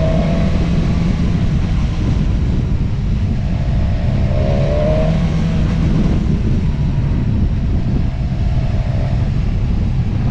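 A motor vehicle running steadily on the road, with continuous engine and road noise and a few faint pitched rises mixed in.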